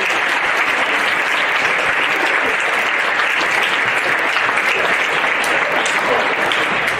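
A large crowd applauding steadily in a gymnasium or auditorium, a dense even clapping that eases off just after the end.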